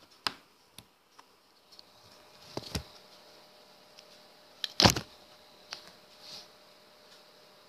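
A few scattered clicks and knocks from the recording phone being handled, the loudest just before five seconds in, over a faint hiss.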